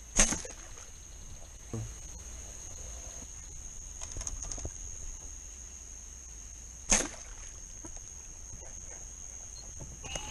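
Two sharp shots of a bowfishing bow, one just after the start and another about seven seconds in, over a steady high-pitched chorus of night insects.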